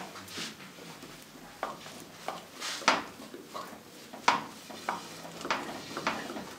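A cardboard tube being handled and pressed against a wooden board: a few irregular light knocks and scrapes, spaced a second or so apart.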